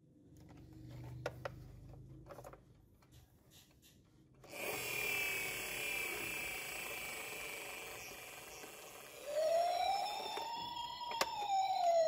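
Plastic toy vehicles handled, with a few small clicks, then about four and a half seconds in the toy ambulance's electronic sound module starts a tinny effect, followed near the end by a rising and falling siren wail.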